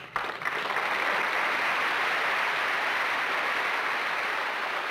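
Studio audience applauding: a steady wash of clapping that starts right away and eases off slightly near the end.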